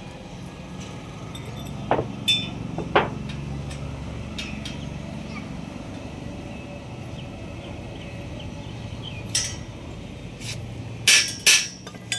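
Metal struck with a hammer: scattered sharp, ringing clinks, three close together about two seconds in, one more later, and the two loudest near the end, over a low steady hum.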